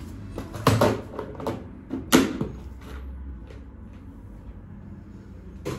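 Kitchen knocks and clatters: three sharp knocks, the loudest about two seconds in, with smaller handling noises between them.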